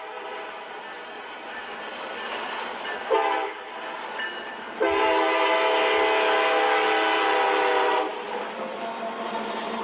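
Train horn sounding over a steady rail rumble: a brief blast about three seconds in, then a long, louder multi-tone blast held for about three seconds from around the fifth second.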